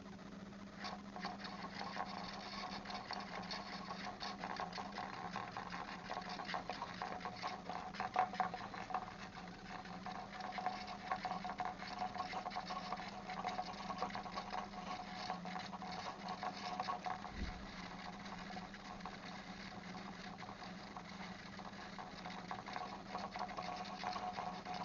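Small 3D-printed fishing reel on an ice rod being cranked as line is wound onto it, a fast, even ticking that starts about a second in and keeps going, with a steady low hum beneath.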